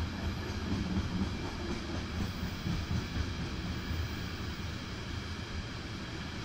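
A freight train's loaded open wagons rolling along the track, a steady rumble of wheels on rails.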